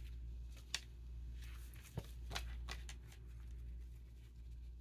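Quiet room tone with a steady low hum, broken by a few faint, short taps and ticks.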